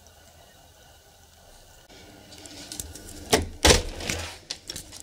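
A front door being unlatched and opened: quiet at first, then rustling and small clicks, and two sharp clunks close together about three and a half seconds in.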